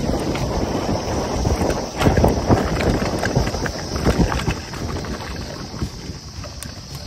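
Wind buffeting the microphone with irregular knocks and rattles from a mountain bike riding over a rough trail; loudest from about two to four and a half seconds in, easing off near the end.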